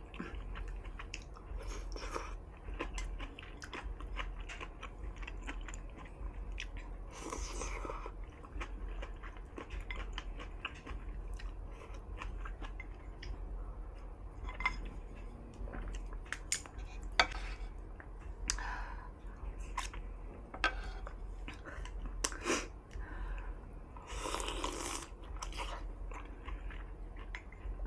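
A person chewing soft hot pot food close to the microphone, with many small wet mouth clicks and smacks. There are two longer, louder noises, about seven seconds in and again near twenty-four seconds.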